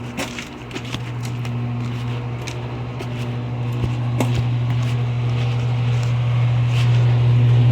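A steady low machine hum that grows gradually louder, with scattered light clicks and ticks over it.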